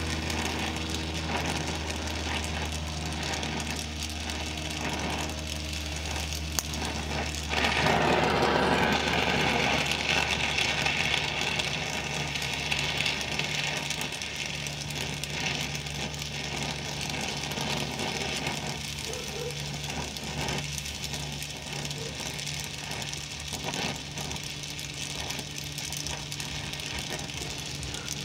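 A steady low machine hum, with a louder hissing, crackling noise starting about eight seconds in and then fading.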